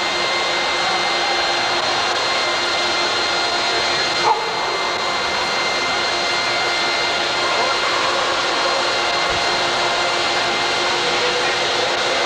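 Forced-air dog grooming dryer blowing steadily through its hose onto an Alaskan Malamute's thick coat: a constant rush of air with a steady motor whine.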